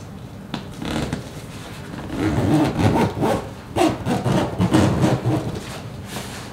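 Hands rubbing and pressing along the fabric cover of an inflated pontoon: irregular scraping and rubbing strokes of cloth over the air bladder, growing louder about two seconds in.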